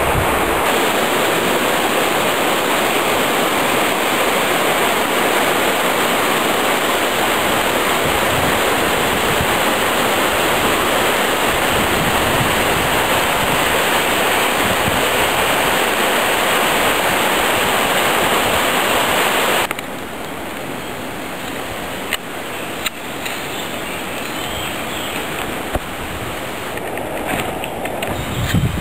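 Rushing stream water, a steady hiss that drops suddenly to a quieter rush about twenty seconds in, with a few faint knocks after the drop.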